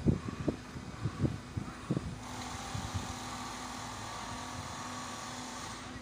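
Track-laying machine working as it swings a rail panel into position, its engine and hydraulics running. A few low thumps come in the first two seconds, then a steadier, louder machine whine with hiss sets in about two seconds in and stops just before the end.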